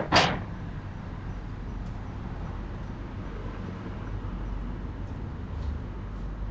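A loud bang just at the start, the last of a quick run of three bangs, then only a steady low hum.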